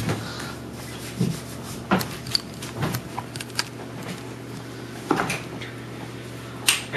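Scattered knocks, rubs and clicks of things being handled and moved, over a low steady hum. Near the end a door handle clicks sharply as the door is opened.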